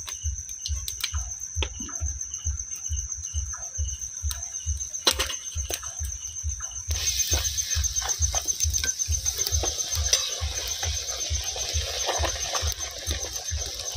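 Night rain ambience: water dripping from the trees in scattered clicks over a steady high insect trill and a low pulsing about three times a second. About seven seconds in the rain gets heavier and turns into a steady hiss.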